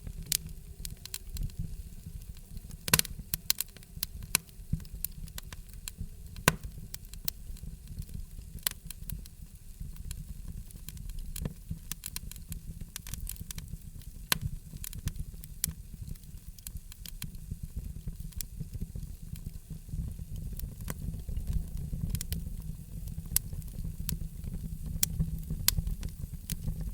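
Wood fire crackling: irregular sharp pops and snaps over a steady low rumble, with a couple of louder pops about three and six seconds in.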